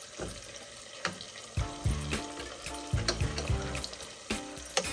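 Wooden spatula stirring a saucy shrimp curry in a nonstick pan, with several light knocks and scrapes against the pan over the bubbling of the sauce. Soft background music with short held notes plays along.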